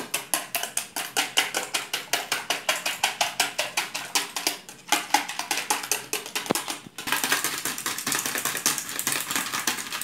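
Wire whisk beating eggs in a square dish: rapid, even clicking of the tines against the dish at about five or six strokes a second, turning into a faster, more continuous clatter about seven seconds in.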